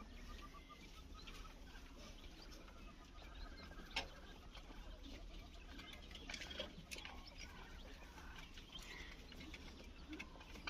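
Faint short chirps from quail, over scattered light clicks and patter, with one sharper click about four seconds in.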